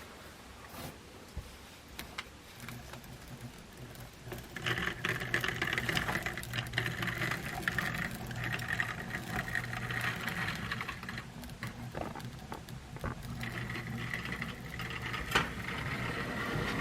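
HO-scale model E8 diesel locomotives running: a steady motor hum with a whirring gear-and-wheel sound that comes in a few seconds in, drops away briefly and returns, as the locomotives lose and regain power on a dirty, dead spot of track.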